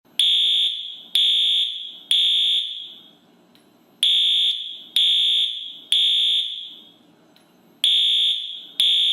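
Fire alarm sounding in the temporal-three evacuation pattern: three loud, high beeps about a second apart, each fading quickly, then a short pause, repeating.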